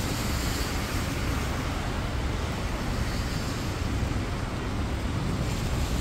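Steady outdoor city noise: an even rushing hiss over a low rumble, with no distinct events.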